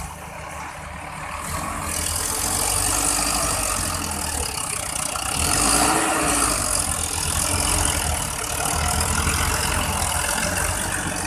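Sonalika DI 750 III tractor's diesel engine working under load close by as its rear blade digs into sand, with a second tractor engine running too. The sound grows louder about two seconds in and is loudest around the middle.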